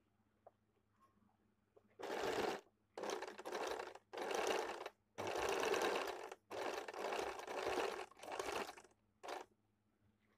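Domestic sewing machine stitching fabric in about seven short runs, stopping and starting as the cloth is guided under the presser foot, beginning about two seconds in and stopping shortly before the end.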